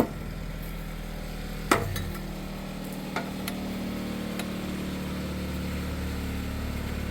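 A single sharp knock of metal parts being handled about two seconds in, then a few light clicks, over a steady low hum.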